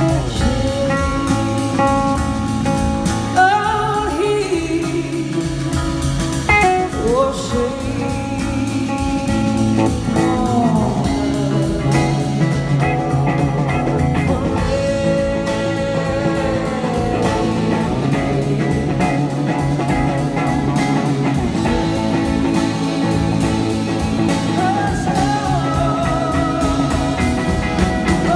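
Live blues-rock band playing: a woman singing over electric guitar and drums.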